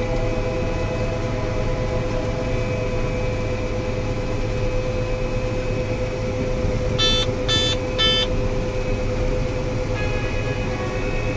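John Deere 9670 STS combine running under load while harvesting, heard from inside the cab: a steady drone of engine and threshing machinery with a constant hum. About seven seconds in come three short electronic beeps, evenly spaced about half a second apart.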